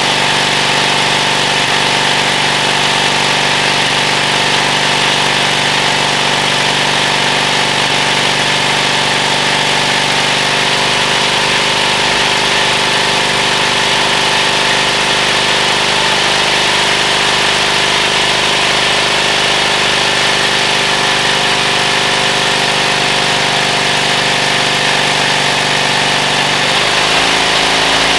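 1946 Caterpillar D6 (5R series) engine running steadily at idle, with a change in its note near the end.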